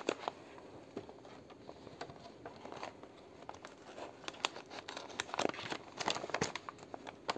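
Gift wrapping being handled and partly opened: crinkling and rustling with scattered light crackles.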